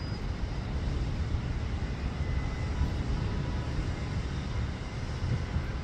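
Storm wind and heavy rain: a steady rushing hiss with low, uneven buffeting of wind on the microphone.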